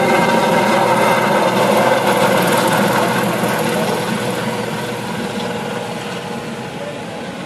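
Airbus H130 (Eurocopter EC130) helicopter flying past overhead: a steady engine and rotor sound with several held tones, growing fainter over the second half as it flies away.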